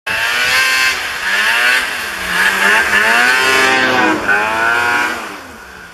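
An engine revving hard several times, its pitch sweeping up and down with each rev, then fading out near the end.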